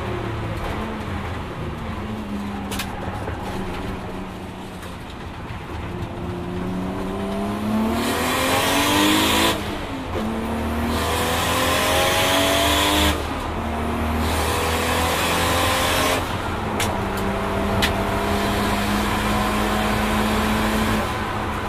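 Single-turbo Nissan RB26 straight-six of a Skyline R32 GT-R heard from inside the cabin, running on low boost. The revs sink off the throttle, then the engine pulls hard through three upshifts, each a sudden drop in pitch, and holds a steady note near the end.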